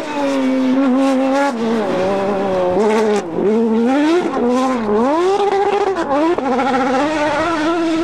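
Rally car engine driven hard past close by, its revs climbing and dropping sharply about four times.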